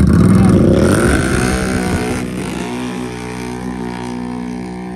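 Two ATVs launching off a dirt drag strip start line at full throttle, their engines revving up in pitch as they pull away. The sound is loudest at the launch and fades over the next two seconds as the quads run down the track.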